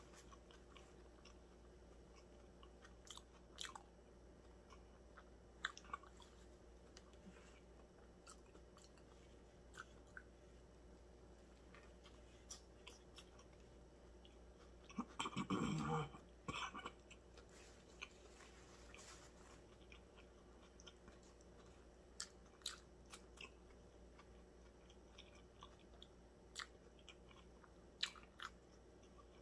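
Faint, close chewing of a steak and cheese sub, with scattered small mouth clicks and smacks. There is one louder, longer mouth sound about halfway through.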